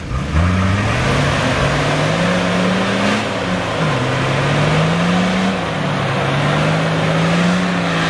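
Nissan Patrol 4x4's engine revving under load in deep mud, its pitch climbing, dropping and climbing again, with the hiss of spinning tyres throwing mud.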